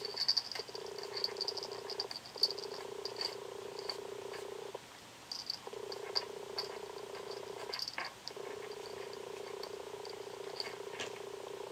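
Cat purring steadily, the purr breaking off briefly a few times, with quick rasping licks and tongue clicks over it as it licks a medicated compress patch.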